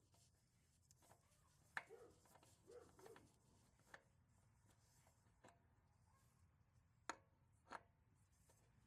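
Near silence with a few faint clicks and light rubbing, from a new oil filter being screwed on by hand: a cluster of ticks about two to three seconds in and two more near the end.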